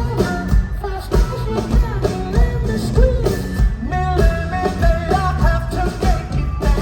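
Live soul-rock band playing, with a kick drum pulsing steadily under bass, guitar and a sung melody.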